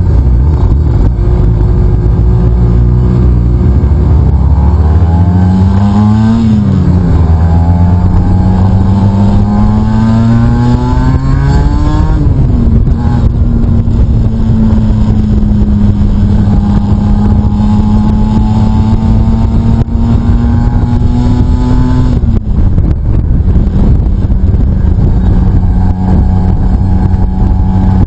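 Aprilia RS SP motorcycle's two-stroke engine heard from the bike itself, pulling hard up through the gears: the pitch climbs and drops sharply at each upshift about six and twelve seconds in. It then runs at steady cruising revs, with one more shift down in pitch a little after twenty-two seconds.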